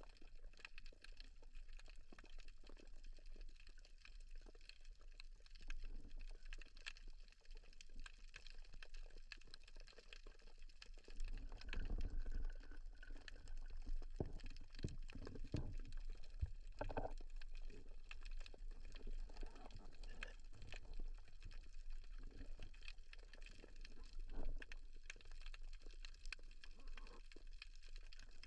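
Underwater sound heard through a camera on a speargun: faint crackling and clicking over a low water hiss, with louder, lower gurgling water movement in the middle stretch.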